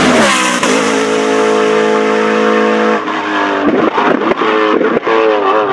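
A car engine running: its pitch holds steady for about three seconds, then drops and climbs back several times in short revs.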